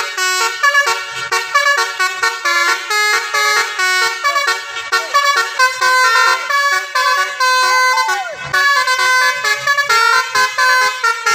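Tour bus telolet horn: a set of multi-tone horns playing a fast, jumpy tune of many short notes, changing pitch several times a second, with one bending note near the end.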